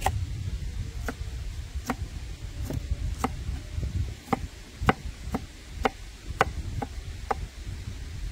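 Knife chopping on a cutting board: about a dozen sharp strokes at an uneven pace of one or two a second, over a steady low rumble.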